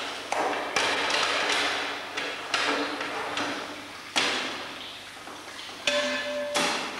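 Stainless steel cheese moulds being handled and stacked on a metal press bench: several sharp metal clanks, a few seconds apart, some ringing briefly.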